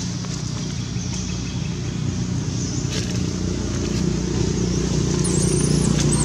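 An engine running steadily, growing gradually louder, with a few faint clicks and a thin high chirp near the end.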